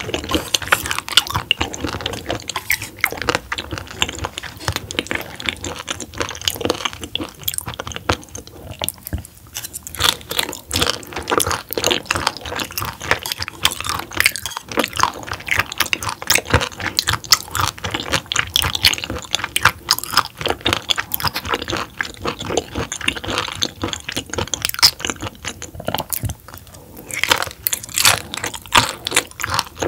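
Close-miked chewing of raw roughscale sole sashimi: a person biting and crunching firm raw fish, with many small wet clicks and crackles throughout and a brief lull a little before the end.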